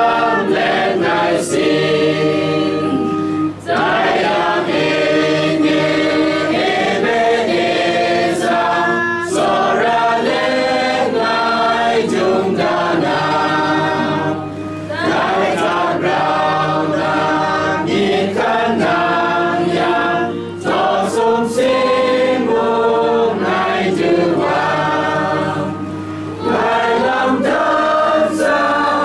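A choir of voices singing a religious song together in long phrases, with short breaks between them, over a steady low hum.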